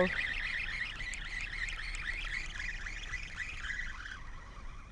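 Many animals chirping at once in a dense, overlapping chorus of short, quick rising-and-falling calls, which drops away about four seconds in.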